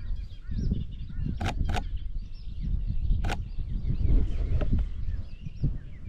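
Sony A7 III camera shutter firing three sharp clicks, two in quick succession about one and a half seconds in and a single one near the middle. Underneath, small birds chirp and a low rumble runs throughout.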